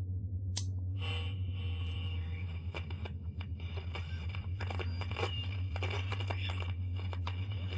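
A television switching on with a click, then crackling static full of pops and scratches over a low steady hum.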